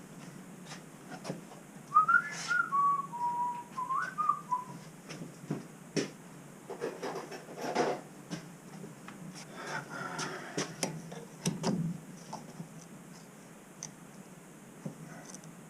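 A person whistling a short wavering tune for about three seconds, then clicks, taps and rubbing from hands working with tools and parts.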